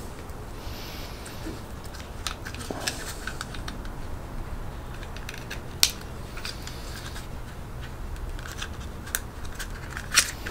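Small plastic parts of a compact handheld electric skateboard remote being handled and clicked together: scattered light clicks and rubbing, with a sharper click about six seconds in and another near the end.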